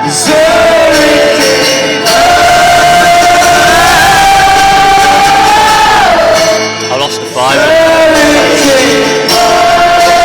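Live acoustic song performance: a voice holds long sung notes over the accompaniment, with short breaks between phrases and crowd noise in a large hall.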